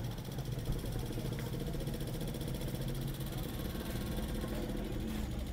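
An engine idling steadily: a low, even hum with a fine regular pulse.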